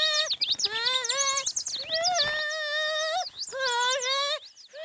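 A cartoon character's voice imitating birdsong: high, wavering, warbling notes in about four short phrases, sounding strained, as if something were caught in the throat.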